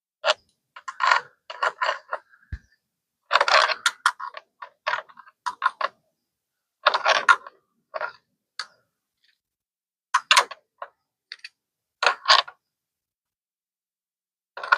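Short bursts of metallic clicking and rattling from hand tools and parts being handled while fasteners on a motorcycle are tightened down. There are about a dozen separate bursts, with silence between them.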